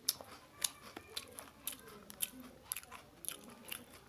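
Crunchy biscuit being chewed close to the microphone, with sharp crunches about twice a second.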